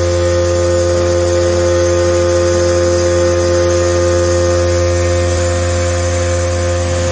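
Vibratory stress relief exciter, an electric motor with an adjustable eccentric weight clamped to a welded steel plate, running at constant speed. It makes a steady, even hum with a bright steady tone above it as it shakes the weldment to relieve welding stress.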